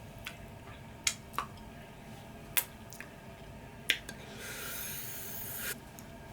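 Close-up eating sounds of chicken wings being chewed: four sharp wet mouth clicks and smacks, then a hiss lasting about a second and a half, near the end.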